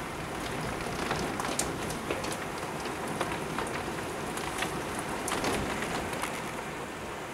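Torrential rain falling in a steady hiss, with frequent sharp ticks of individual drops striking close by.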